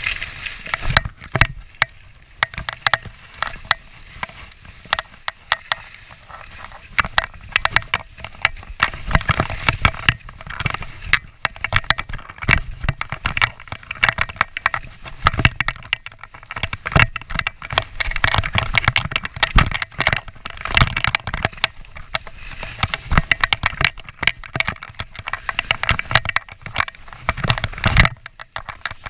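Skis scraping and chattering over hard-packed snow on a fast downhill run, a continuous rough hiss broken by many short clattering knocks.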